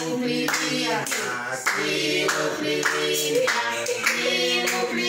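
A small group of people singing a birthday song together and clapping in time, about two claps a second.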